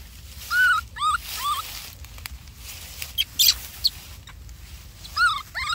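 Baby monkey giving short, high, squeaky cries, several in quick succession about half a second in and again near the end. A few sharp crackles of dry grass come in between.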